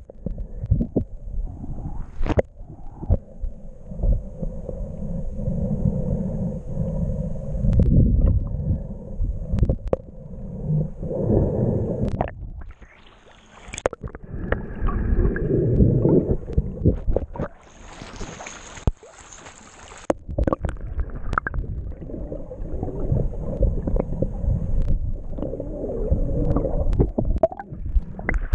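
Muffled underwater gurgling and sloshing of water with bubbles, heard through a waterproof camera housing as it moves through the water, in uneven rushes. It drops away briefly twice, and a short hiss stands out partway through.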